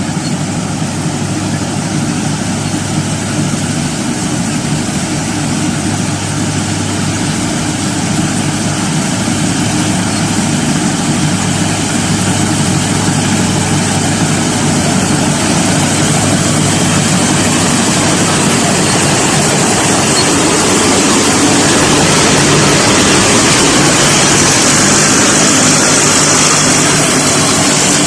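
Combine harvester's engine running steadily, slowly getting louder, with more high hiss near the end.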